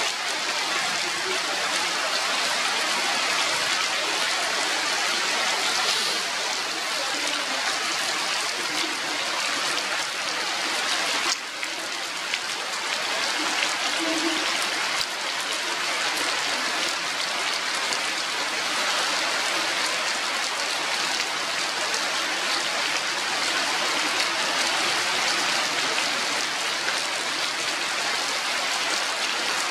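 Steady rain falling on forest foliage, an even hiss of rainfall that dips briefly about eleven seconds in.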